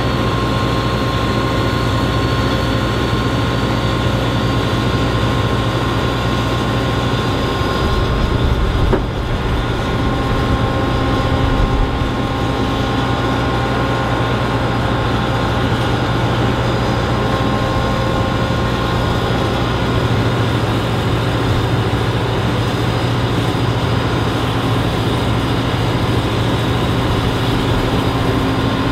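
John Deere 9770 STS combine's diesel engine running at a steady idle just after starting, with a brief swell in the low rumble about eight seconds in.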